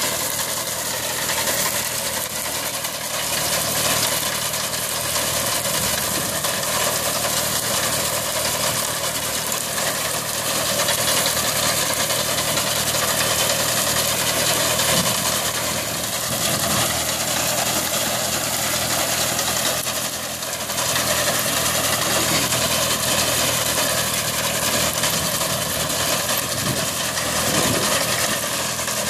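Kubota 30 hp water-cooled diesel engine of a Yapel ÇDG-370 reaper-binder running steadily as the machine harvests wheat.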